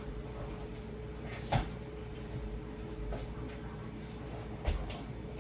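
Two short knocks, about three seconds apart, over a steady faint hum, like kitchen cupboard doors or utensils being handled.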